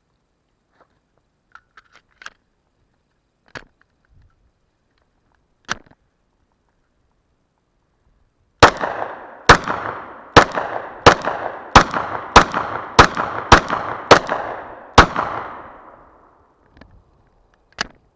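A string of ten shots from a Glock 29SF 10mm Auto pistol, fired about one every two-thirds of a second, each followed by a short echo. A few light clicks come before the string and two after it.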